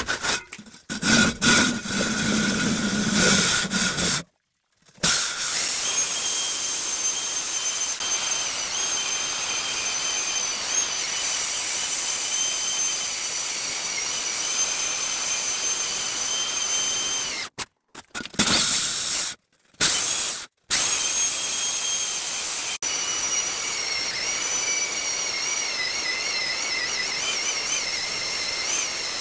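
Hand-held electric drill with a core bit cutting into a stone wall: a steady high whine over a grinding rasp. It cuts out briefly about four seconds in and three more times a little past halfway, and the whine wavers in pitch near the end.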